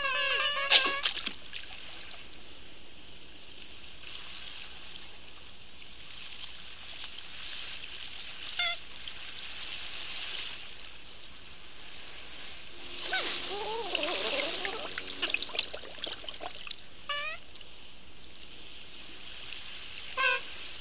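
Water sound effect: a steady trickling, running-water hiss, broken a few times by short falling chirps. There is a busier stretch of splashing and bubbling about thirteen to sixteen seconds in. A held, pitched cry cuts off about a second in.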